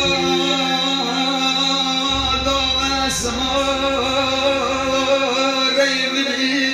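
Live wedding music amplified through a PA: an electronic keyboard playing sustained melody and bass tones, with a man singing into a microphone.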